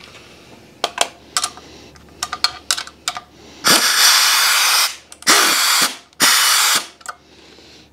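Air impact wrench run in three short bursts, each about a second or less, turned down really low so it snugs the up-pipe bolts without stripping them, and mostly heard as a rush of air. A few light clicks come before the first burst.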